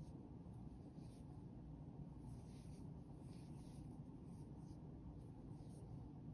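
Faint, soft rustling scrapes of a metal crochet hook pulling cotton yarn through stitches, a few short strokes at uneven intervals, as half double crochets are worked into a dishcloth corner.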